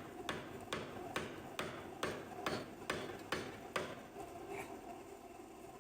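Hammer blows striking steadily, about two a second, ten or so in all, stopping about four seconds in: knocking loose an Allis-Chalmers B water pump seized on with dirt and rust.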